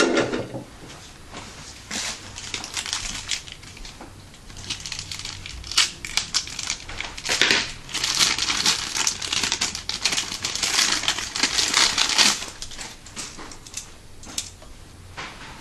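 A sharp clack right at the start, then plastic toy packaging crinkling and crackling as it is handled and pulled open, heaviest for about five seconds in the middle.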